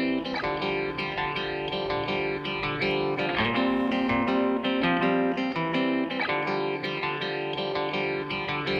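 Background music: plucked guitar playing a melody over sustained chords.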